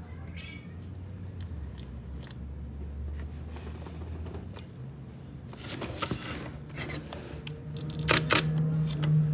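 Small clicks, rubbing and plastic clatter from a hot-shoe flash and radio trigger being handled and their buttons pressed, over a steady low hum. A sharp double click near the end is the loudest sound.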